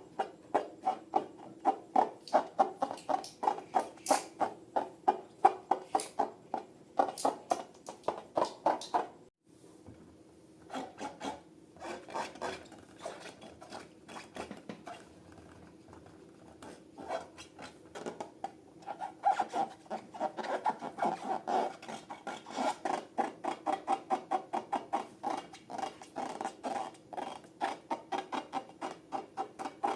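Slime being mixed, a quick rhythmic sticky squishing at about three strokes a second. It stops briefly about ten seconds in, goes on more softly, then picks up again.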